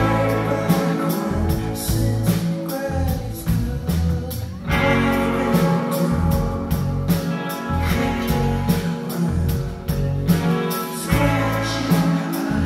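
Live rock band playing a song, with a drum kit keeping a steady beat under bass and sustained guitar chords, and singing.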